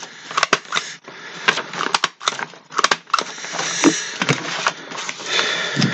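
Rustling and crackling handling noise close to the microphone, with many sharp clicks scattered irregularly through it.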